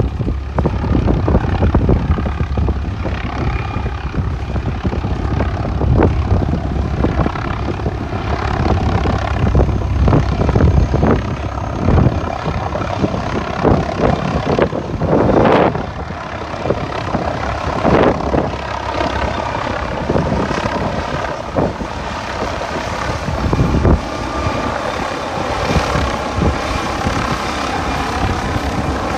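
Doctor Heli air-ambulance helicopter's rotor and turbine engine running close by, with strong wind buffeting the microphone in heavy gusts. The low rumble and gusts are heaviest in the first half. After that a steadier engine sound with a faint whine comes through.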